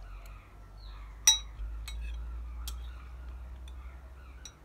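Metal spoon clinking against a bowl: one sharp, ringing clink about a second in, then a few lighter taps, over a steady low hum.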